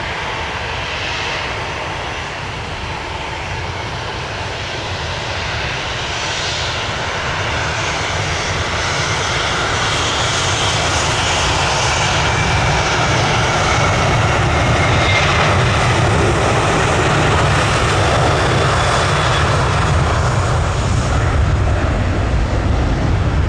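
Airliner engines: a steady rush with a faint high whine, growing slowly louder.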